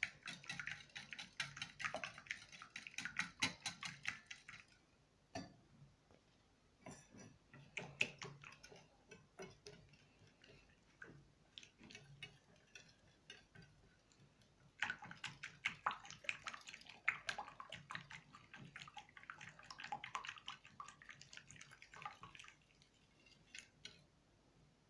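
Wire whisk beating an egg and kefir mixture in a ceramic bowl: fast wet clicking and slapping strokes. The beating comes in two spells, over the first four seconds or so and again from about 15 to 22 seconds, with only scattered taps in between.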